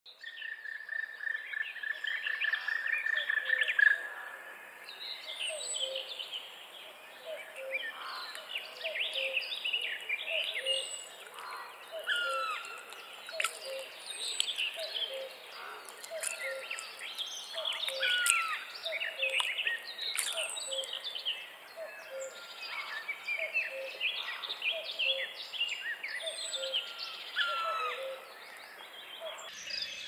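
Spring swamp ambience: several songbirds singing and calling over one another, with a frog's short low note repeated about once a second. A steady high trill in the first four seconds grows louder and then stops.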